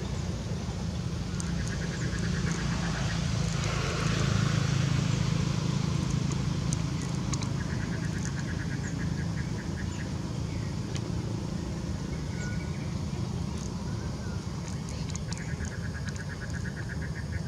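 Steady low rumble of distant traffic, swelling for a few seconds about four seconds in. Three short, fast-pulsed trills, each about two seconds long, sound over it.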